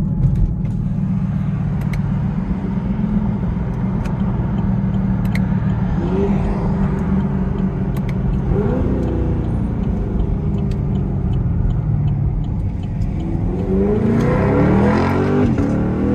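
Chevrolet Camaro SS's V8 heard from inside the cabin, its exhaust popping and crackling while the car slows. About three seconds from the end it revs up in a strong rising sweep under hard acceleration.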